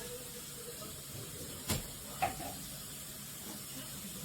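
Steady background hiss of room noise, with two short clicks about half a second apart near the middle.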